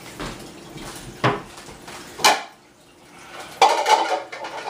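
Dishes knocking and clattering as a big mixing bowl is fetched: a couple of single knocks, then a busier clatter near the end.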